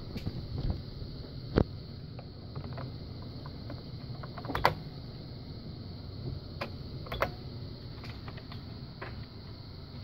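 A few sharp, isolated key clicks from an IBM mechanical keyboard, the loudest about one and a half seconds in and again near five seconds in, over a steady background hum.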